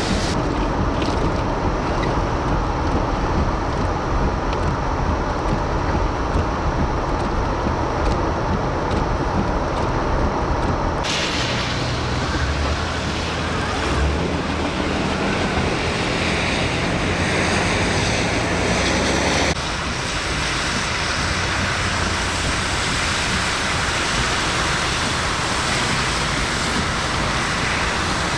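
Very strong storm winds with blowing rain, a steady loud rush with heavy wind rumble on the microphone. The sound changes abruptly twice, about a third and two-thirds of the way through.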